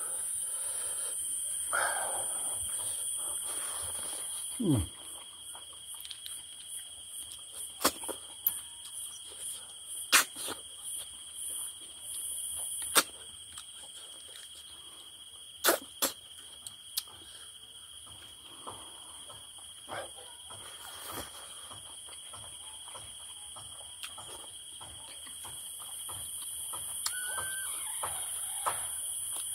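A person eating cooked snails with buffalo skin: scattered, irregular short clicks and smacking sounds. Under them runs a steady, high-pitched chirring of insects.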